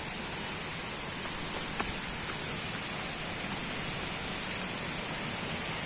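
Steady rushing of falling water, an even hiss with no changes in level.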